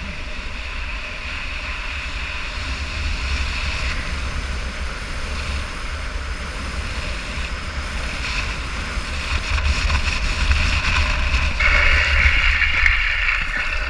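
Wind buffeting a helmet-mounted camera at speed downhill, over the steady rolling noise of skate wheels on asphalt. About two-thirds of the way through, a higher steady whirring tone comes in, grows louder for a couple of seconds, then fades.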